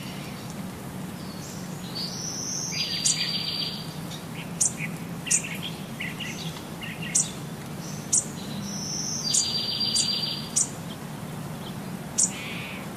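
A small bird singing: sharp high chirps and a buzzy trill, the same phrase heard twice, over a steady low hum.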